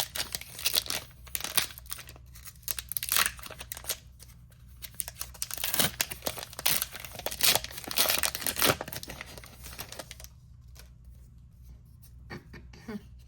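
Foil wrapper of a Pokémon card booster pack being torn open and crinkled, with dense crackling for about ten seconds that then dies down to a few light rustles.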